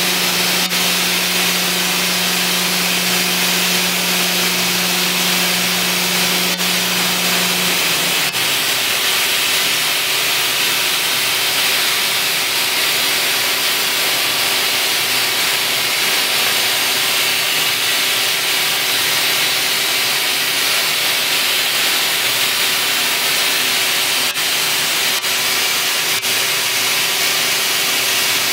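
SNX nVision contour edgebander running steadily as a curved panel is hand-fed through its pressure head, a constant hissing machine noise with a steady hum under it. A lower hum cuts out about eight seconds in.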